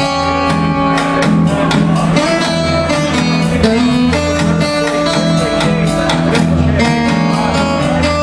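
Acoustic guitar strummed live with a drum kit keeping a steady beat, an instrumental blues-rock passage without vocals.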